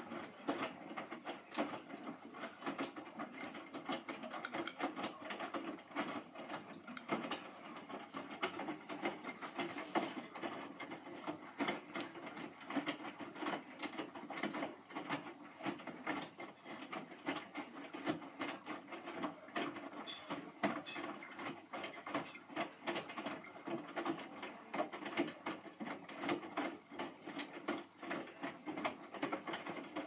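Hotpoint NSWM 843C front-loading washing machine washing a full load: the drum turns the wet clothes, which slosh and drop inside it with a steady, irregular patter.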